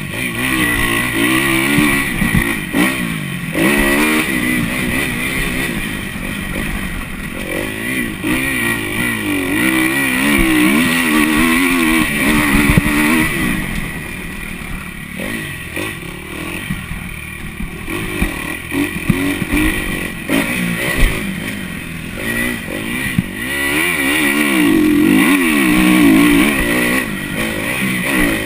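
Kawasaki KX250F motocross bike's single-cylinder four-stroke engine under hard riding, revving up and falling back again and again.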